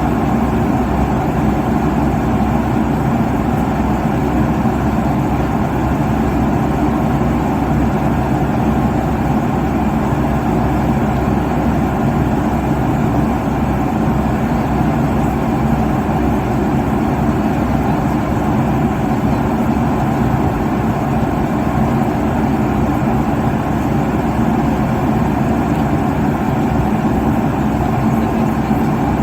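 Airliner cabin noise at cruising altitude: a steady, even rush with a low hum underneath.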